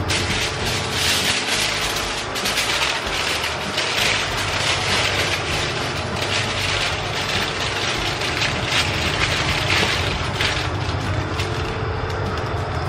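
Aluminium foil crinkling and crackling in irregular handfuls as it is folded and wrapped around a whole fish; the crinkling stops near the end. A steady low hum runs underneath.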